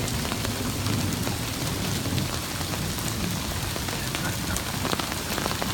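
Heavy rain pouring steadily onto a flooded street and standing water, an even hiss with scattered sharper drop ticks.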